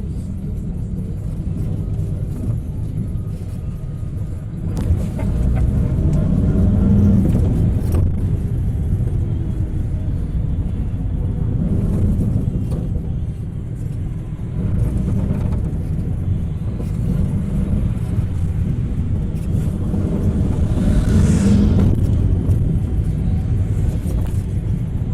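Minibus engine and road rumble heard from inside the passenger cabin, the engine note rising as the bus picks up speed about five seconds in and again near the end.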